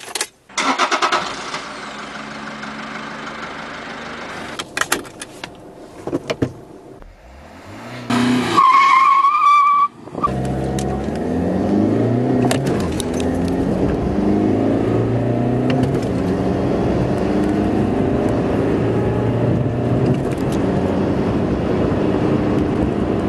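Toyota Yaris 1.4 D-4D's four-cylinder turbodiesel cranked and started with the key, idling, then revved briefly. About ten seconds in it pulls away at full throttle from a standstill, its note climbing in pitch through each gear and dropping back at every change as the car accelerates to nearly 100 km/h, heard inside the cabin.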